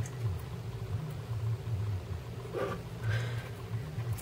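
Low, steady background hum that wavers slightly, with two faint short handling sounds about two and a half and three seconds in.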